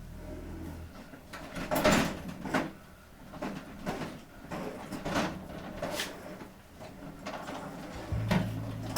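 Irregular knocks and clatter of tools and parts being handled and moved around on a workbench. A low steady hum stops about a second in and comes back near the end.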